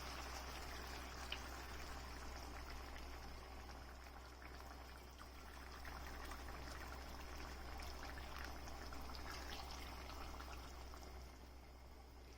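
Hot water pouring steadily into a pot of fried chicken and sautéed vegetables, a faint pouring and trickling that eases off near the end.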